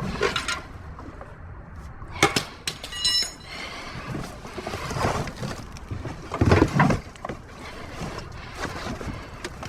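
Junk being shifted inside a dumpster. A sharp knock comes about two seconds in, then a short metallic ring, then heavier scraping thuds twice further on.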